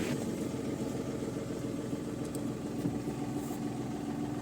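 Tata Tiago's 1.05-litre three-cylinder diesel engine idling steadily just after starting, now that its cut immobiliser wiring has been repaired.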